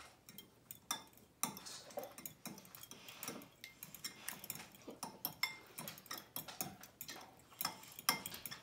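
A metal fork clinking against a glass bowl while beating raw eggs, an uneven run of light clicks several times a second.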